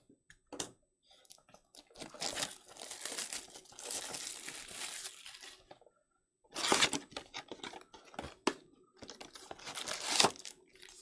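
Card box packaging being torn open and crinkled: a sealed trading-card hobby box unwrapped and its packs pulled out, in rustling, tearing stretches with a short pause about six seconds in.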